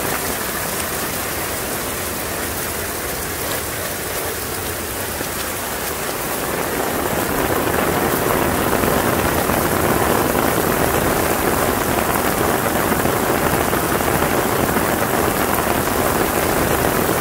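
Heavy rain falling on pavement, a steady hiss that grows louder about seven seconds in.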